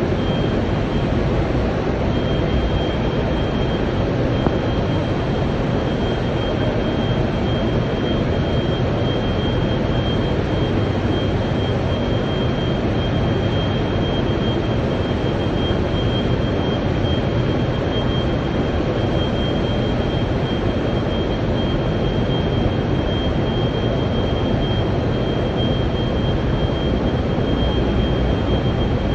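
Steady industrial roar of a steel plant's furnace area, with a thin high whine held over it from about two seconds in.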